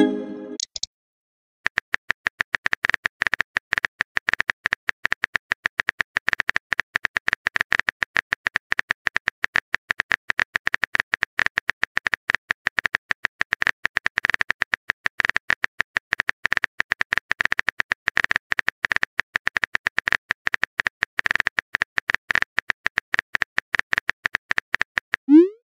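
A short pitched pop as a chat message appears, then after a moment of silence a rapid, unbroken run of keyboard-typing click sound effects, the text-message app's typing sound while the next message is being written.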